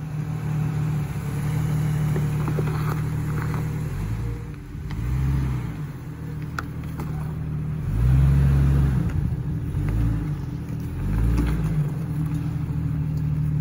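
Jeep Cherokee XJ's engine running at low speed, with several short bursts of throttle as it crawls over rock ledges, and occasional faint clicks.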